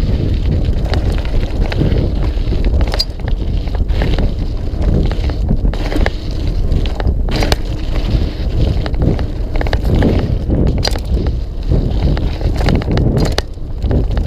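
Mountain bike riding down a dirt singletrack: a steady low rumble of tyres on the trail with wind on the microphone, broken by frequent sharp rattles and knocks from the bike over bumps.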